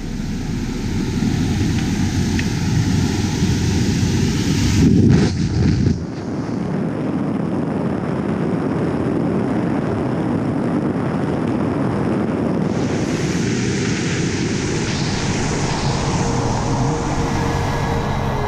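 Propeller airplane in flight heard up close, a loud steady mix of engine drone and rushing air. The sound changes abruptly about six seconds in and again later.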